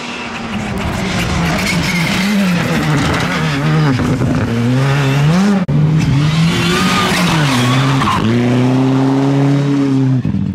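Rally car engines at full effort on a special stage, the pitch climbing and dropping repeatedly through gear changes. The sound breaks off suddenly a little past halfway, and near the end an engine holds a steady high note for about two seconds.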